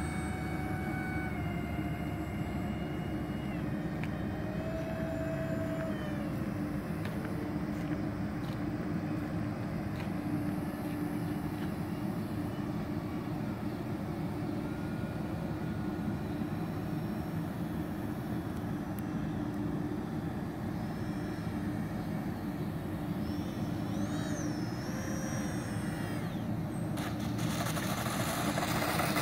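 Electric ducted fans of a radio-controlled Airbus A330 model airliner in flight, a faint whine whose pitch slides down and up as the throttle is worked, over a steady low rumble. Near the end the sound grows louder and rougher as the plane comes in and lands.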